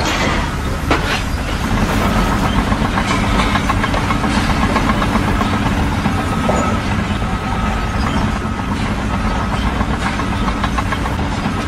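A heavy engine running steadily, a continuous low rumble with a faint on-and-off whine above it.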